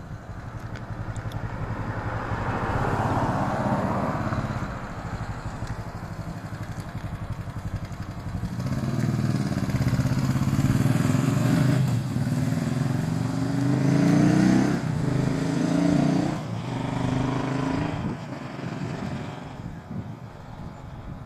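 Motor vehicle noise: something passes a few seconds in, then an engine grows loud, its pitch climbing and dropping back in steps several times before it fades near the end.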